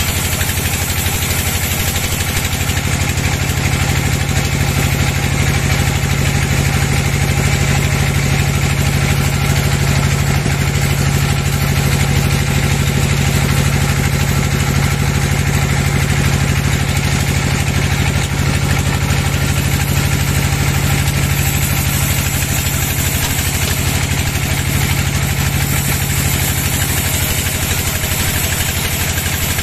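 Large band sawmill running, its blade sawing a board off a teak log: a steady machine hum under the even hiss of the cut.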